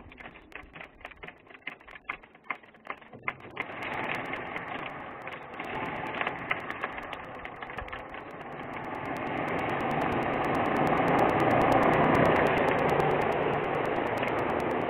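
DJI Inspire drone with one propeller missing: a rapid ticking of about four or five clicks a second for the first few seconds, then its electric motors and remaining propellers spin up into a steady whirring that grows louder from about eight seconds in as the drone tips over on the grass.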